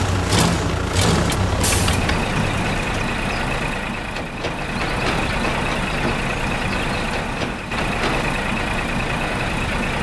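Steady heavy-vehicle engine running for a toy combine harvester driving along. It has a deep rumble at first, and from about two seconds in a steady high whine sits over the drone.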